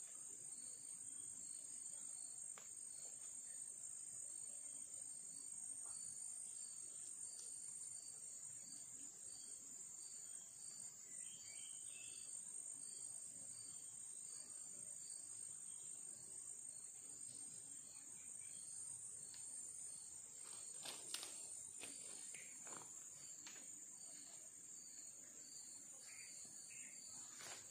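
Forest insects: a steady high-pitched drone with a regular chirping pulse repeating through it. A few soft handling clicks and rustles come about three quarters of the way through.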